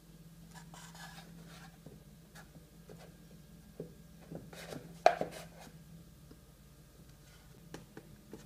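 Hard plastic Play-Doh Fun Factory press being handled: scattered clicks and scraping, with a sharp plastic clack about five seconds in as the yellow lever is pushed down to squeeze the dough out.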